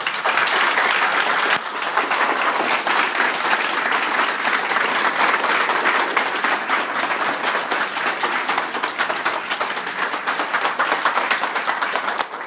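Audience applauding, a dense steady mass of hand claps that cuts off abruptly at the end.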